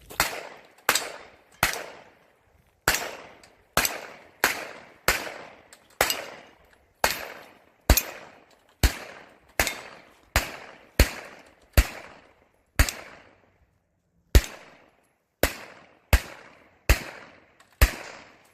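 Phoenix Trinity Honcho pistol fired in a steady string of about twenty shots, each a little under a second apart, with one longer pause about two-thirds of the way through.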